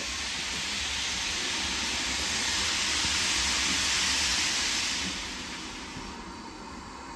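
Steam locomotive letting off a long, loud hiss of steam that swells and then fades away after about five seconds, over a low rumble.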